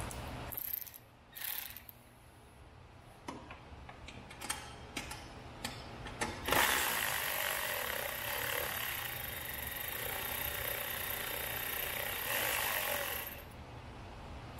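Scattered sharp clicks and knocks, as of plastic hood clips and body panels being worked loose, followed from about six and a half seconds in by several seconds of steady hissing noise that cuts off near the end.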